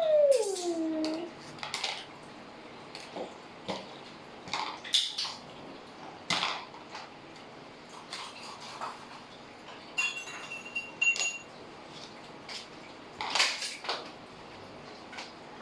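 Scattered clinks and taps of spoons, cutlery and small containers being handled, with a short ringing clink about ten seconds in. A voice glides down in pitch at the very start.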